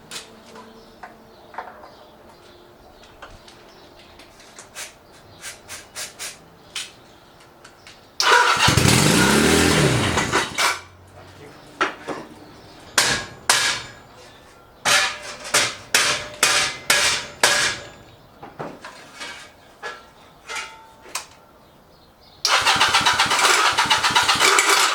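Motorcycle engine, a Chinese clone of the Honda Rebel 250 engine, being cranked with its electric starter in repeated attempts: a long crank of about two seconds, a string of short bursts, then a steady crank again near the end.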